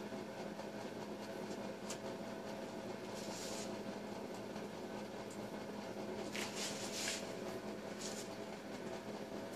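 Quiet room tone: a steady low hum with a few short, soft hissing rustles, the strongest about two-thirds of the way through.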